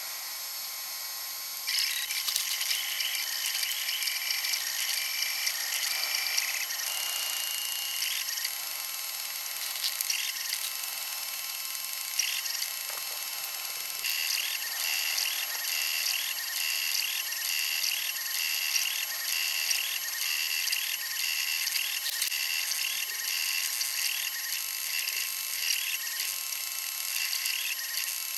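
Flashforge 3D printer at work: its stepper motors whine in short tones that step up and down in pitch as the print head moves. From about halfway the whines come in a quick, even rhythm, over a steady high hum.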